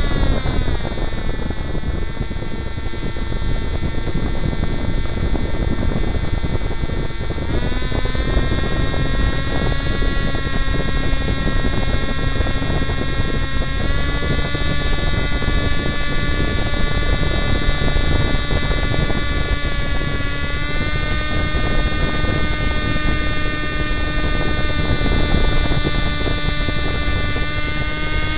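Powered paraglider trike's engine and propeller running steadily in flight, with rushing air. The engine pitch drops in the first two seconds, then climbs in small steps several times as the throttle is opened further.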